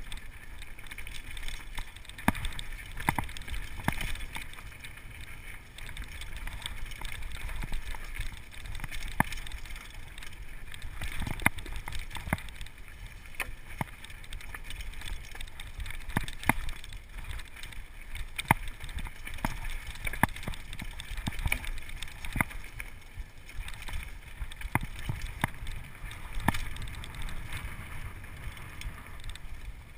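Downhill mountain bike rattling and clattering over a rough, rocky trail: frequent sharp knocks of the frame, chain and suspension over a steady low rumble of tyres on the ground.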